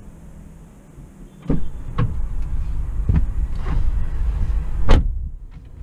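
Skoda Octavia RS245's turbocharged 2.0 TSI engine through a Milltek and Borla aftermarket exhaust, heard from inside the cabin at the rear seat: a low rumble and drone that swells about a second and a half in. Several sharp knocks come through it, the loudest near the end.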